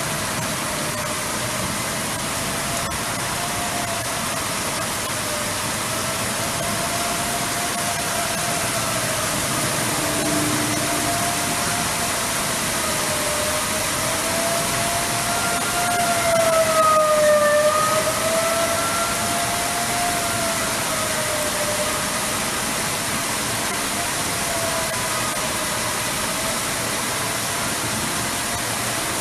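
Outdoor civil-defense warning siren sounding a long steady wail for a tornado warning, its pitch wavering slightly. It swells loudest about halfway through, over a steady background hiss.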